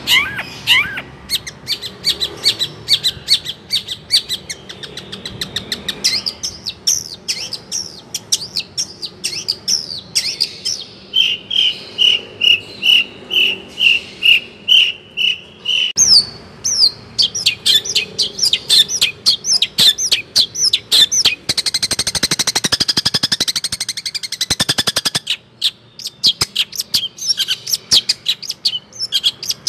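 A caged songbird singing loud, rapid chirping phrases, with a run of evenly spaced repeated notes, about two a second, in the middle and a dense fast trill later on.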